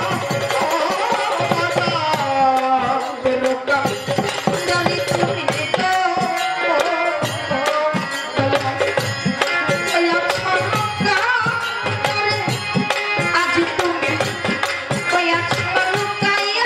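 A woman singing a Bengali baul folk song into a microphone, her melody gliding and ornamented, over a steady hand-drum rhythm and accompaniment.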